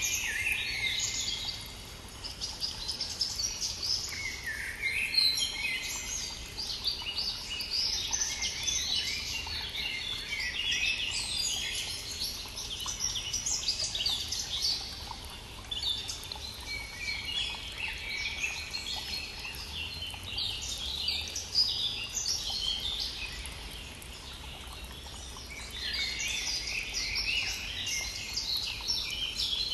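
A spring dawn chorus of several songbirds, with dense, rapid chirps and trills in bouts that briefly ease about two seconds in, around the middle, and a few seconds before the end. A faint steady rush of a flowing stream runs underneath.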